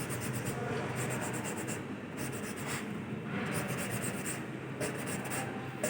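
Repeated gritty rubbing of an engine valve being lapped into its seat in an Isuzu 6BG1 diesel cylinder head, ground in to cure a leaking valve.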